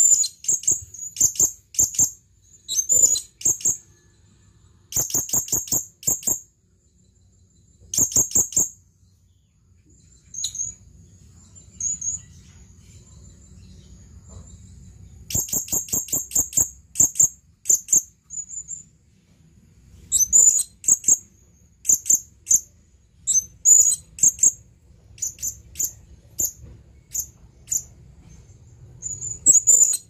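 Male blue-crowned hanging parrot (serindit) calling: quick runs of sharp, high chirps in repeated bursts, with a quieter stretch of only a few faint chirps in the middle. This is the call a male uses to call a female.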